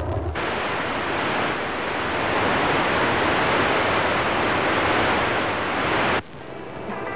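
Television static: a steady hiss of white noise like an untuned TV channel. It cuts off abruptly about six seconds in.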